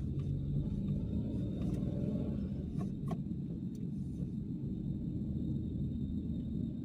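Car driving slowly along a city street: a steady low rumble of engine and tyre noise, with a few light clicks about three seconds in.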